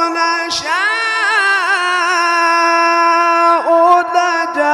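Male reciter chanting the Quran in melodic tajweed style: long, drawn-out notes with ornamental turns in pitch. There is a short break about half a second in, and the next word, "nasha'u", comes near the end.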